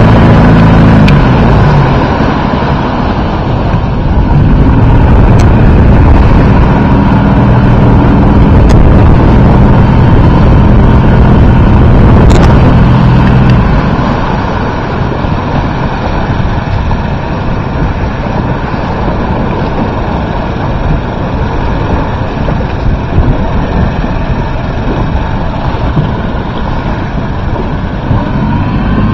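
Motorboat engine running steadily, mixed with wind on the microphone and water rushing past the hull; about halfway through the engine tone drops away, leaving wind and water.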